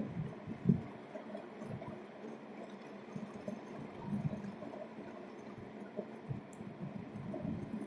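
Uneven low rumble of wind buffeting the microphone as it moves along an asphalt road, with occasional soft thumps, the strongest about a second in.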